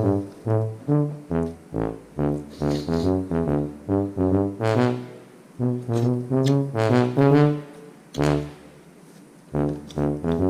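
Instrumental background music: a tune of short, separate notes over a beat, with a brief break about a second and a half long before it picks up again near the end.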